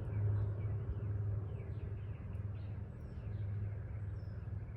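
Small birds chirping in short, quick, falling notes over a steady low rumble.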